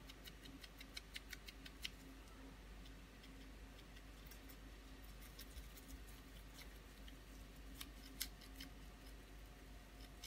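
Near silence, with faint, irregular clicks and scratches of a flat paintbrush dabbing and scraping acrylic paint onto a canvas board, over a low steady hum.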